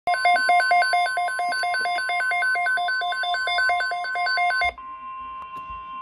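Midland weather radio going off with a loud, fast pulsing alert beep, about five beeps a second, over NOAA Weather Radio's steady warning alarm tone, signalling a tornado watch. The beeping stops about three-quarters of the way through, and the steady alarm tone carries on more quietly.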